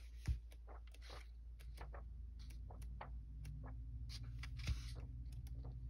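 Sheets of a scrapbook paper pad being handled and turned: light, irregular paper rustles and crackles, with two soft thumps, one just after the start and one near the end, over a steady low hum.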